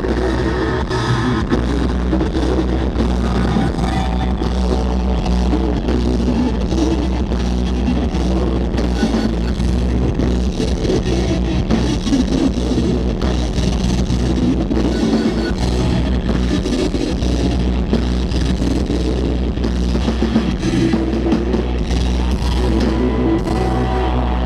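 Rock band playing live through a festival PA: electric guitars, bass and drum kit with a steady beat, heard from the crowd.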